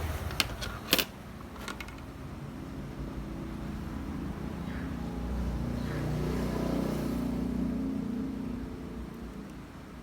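A few sharp clicks in the first two seconds, then a motor vehicle's engine rumbling past, swelling toward the middle and fading away again.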